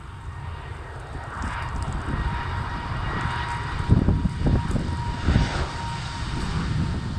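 Airbus A220's Pratt & Whitney geared turbofan engines running at power as the airliner rolls along the runway. A jet roar with a steady whine that grows louder as the aircraft draws near, with low rumbling surges.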